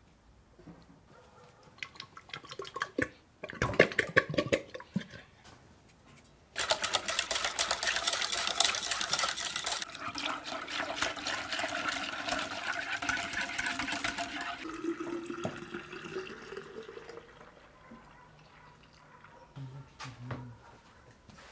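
A wire whisk rattling quickly against an enamel pot as water is poured in and beaten into a white liquid, with splashing. It comes in short bursts at first, then runs on hard for about eight seconds before dying down.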